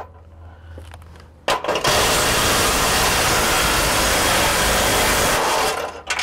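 DeWalt cordless impact gun driving bolts back into a truck's front bumper bracket. A short burst about a second and a half in, then a steady run of about four seconds that stops near the end.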